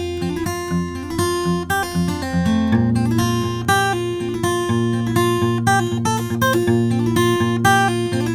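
Close-miked acoustic guitar playing a steady, repeating pattern of plucked notes, with a chord change about three seconds in.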